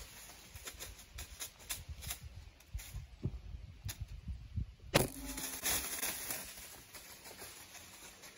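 A deer stepping through dry fallen leaves with scattered crunching steps, then about five seconds in a bow is shot at close range: one sharp crack with a ringing hum that fades over a couple of seconds, under a burst of rustling leaves.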